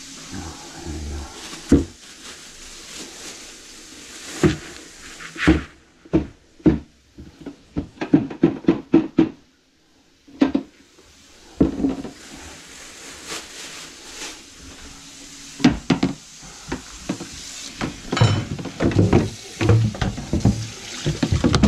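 Handling noise of a grease-coated plastic bucket with a wire handle being picked up and moved: a string of knocks, clatters and scrapes, with a brief quiet gap about ten seconds in.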